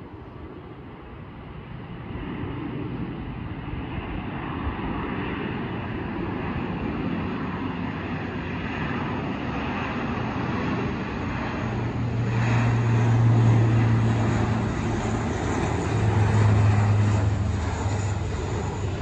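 Lockheed C-130 Hercules four-engine turboprop flying low on its way in to land, the engine and propeller noise growing louder, with a deep steady propeller hum that swells twice in the second half.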